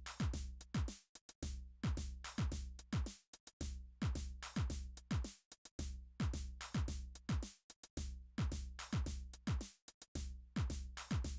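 Background electronic music with a steady drum-machine beat and deep kick drums that drop in pitch.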